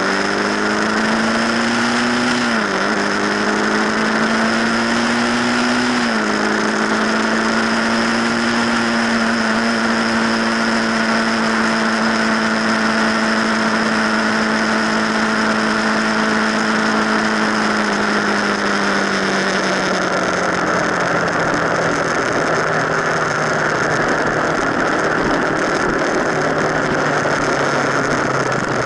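Motorcycle engine heard from a camera on the front fork leg, under heavy wind and road noise. The engine pitch climbs and drops sharply twice in the first six seconds as the rider shifts up, holds steady at cruising speed, then sinks lower about two-thirds of the way through as the bike slows.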